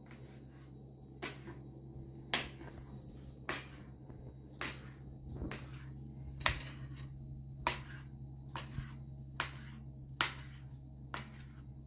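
Kitchen knife chopping boiled spinach on a plastic chopping board: a sharp knock of the blade against the board about once a second, eleven times, over a steady low hum.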